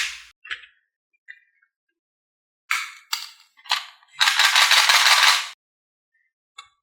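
Marbles clattering down a wooden HABA marble track: three short rattles in quick succession about three seconds in, then a longer rolling rattle lasting about a second, with a few faint clicks before and after.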